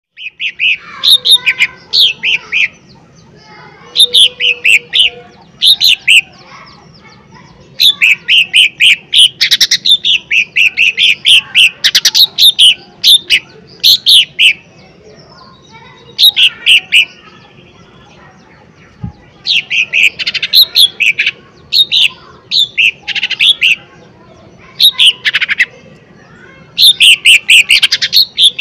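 Lesser green leafbird (cucak ijo mini) singing loud, rapid phrases of sharp whistled notes, each run lasting a second or a few seconds with short pauses between, and a longer pause a little past the middle.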